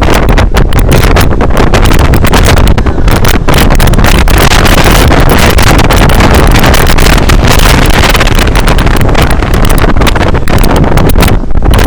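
Heavy wind buffeting the microphone, loud and continuous, from riding on the roof of a moving bus.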